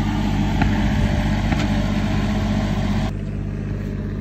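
Engine of a tractor laying paving tiles, running steadily. A hiss over it cuts off about three seconds in.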